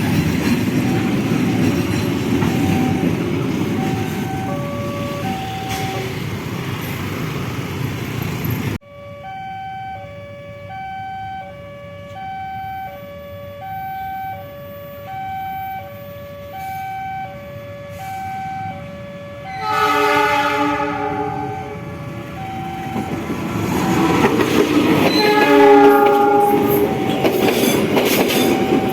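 A railway level-crossing alarm repeats its alternating two-note signal, at first under the rumble of a passing train; about nine seconds in the rumble stops abruptly and the alarm rings on alone. A locomotive horn sounds loudly at about twenty seconds and again a few seconds later as another train approaches, its rumble rising toward the end.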